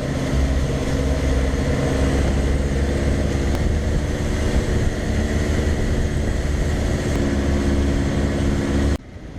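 Small passenger boat's engine running steadily at cruising speed, with a strong low rumble under an even engine tone. It drops away suddenly near the end.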